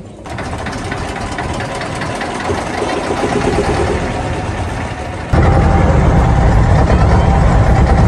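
A tourist motorboat's inboard engine running, mounted on the open deck close by. About five seconds in the sound suddenly becomes much louder and deeper.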